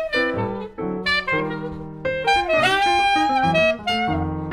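Jazz saxophone playing the melody over chord accompaniment. Just past the middle it holds one note for about a second, scooping up into it.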